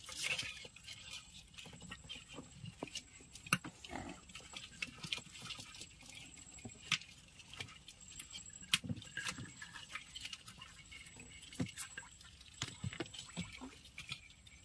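Quiet, irregular clicks and knocks as a baited crab line is hauled in by hand over a boat.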